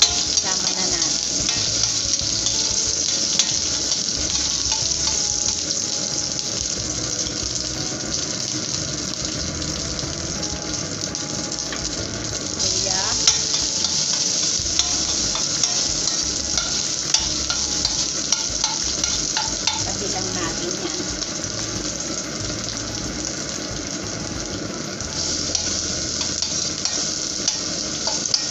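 Pork, ginger and garlic frying in hot oil in a steel wok: a steady sizzle that steps louder about halfway through and again near the end as more food goes into the pan, with the scrape and clink of a metal ladle stirring.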